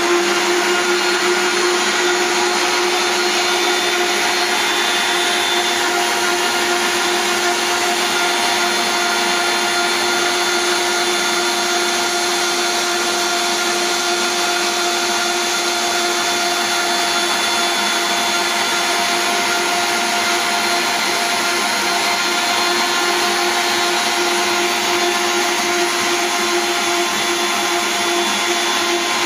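Electric stand mixer running steadily at top speed with its dough hook, kneading pizza dough: a loud, even motor whine that holds one pitch.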